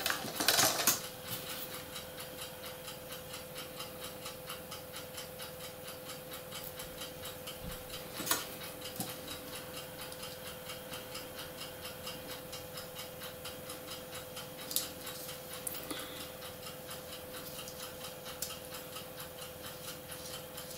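H0 Piko A-Gleis track sections, plastic sleepers with metal rails, clattering as they are handled in the first second, then a few single light clicks. Under it runs a steady, even ticking and a faint steady hum.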